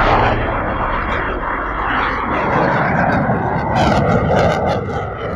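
Jet noise from a KF-21 Boramae fighter's twin turbofan engines as it climbs away overhead: a loud, steady rush that slowly fades, with some crackle about four seconds in.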